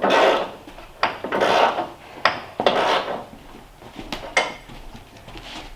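Rough scraping strokes on wood, three or four in the first three seconds, broken by several sharp knocks.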